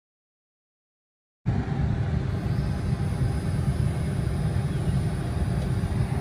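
Silent for about the first second and a half, then steady low rumble of road and tyre noise inside the cabin of a moving 2021 Tesla Model 3, an electric car with no engine sound.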